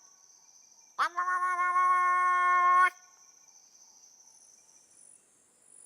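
A man imitating the distress call of a sitatunga antelope: one long, steady, wailing cry that starts about a second in with a quick upward slide and breaks off about two seconds later. A steady high insect drone runs underneath.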